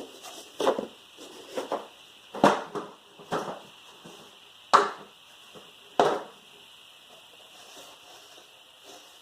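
Hand tools knocking and clanking against metal while bolts are taken off a car's rear wheel hub: about seven sharp knocks at uneven intervals, the loudest about halfway through and again a second later.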